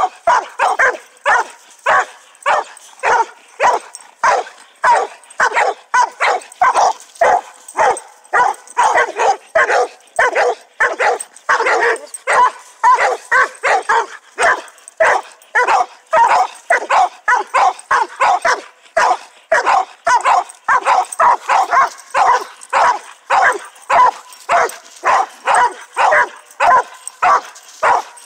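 Dogs barking without pause, about two sharp barks a second, baying at an animal held in a wire cage trap.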